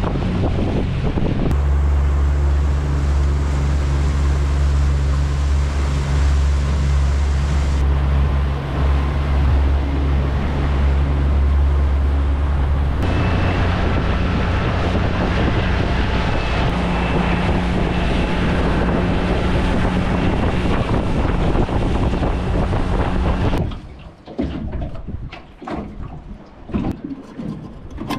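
Small boat's outboard motor running at cruising speed, a steady drone with wind buffeting the microphone and water rushing past the hull. About four seconds before the end the engine noise gives way to quieter clicks and knocks.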